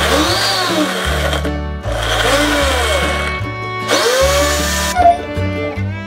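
Countertop blender chopping kiwi into purée, running in three bursts of a second or two with short pauses between.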